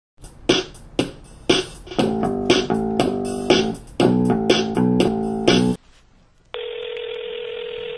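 Intro music: a beat of sharp hits about twice a second, with chords joining about two seconds in, cutting off suddenly just before six seconds. About a second later a steady telephone line tone begins.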